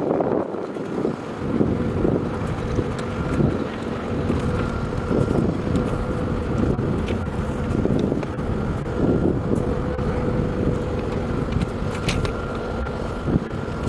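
Wind buffeting the microphone in gusts, a heavy low rumble, with a faint steady hum of two tones underneath.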